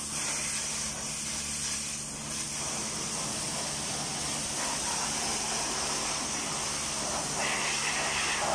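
Pressure washer spraying a jet of water in a steady hiss, with a steady low hum underneath.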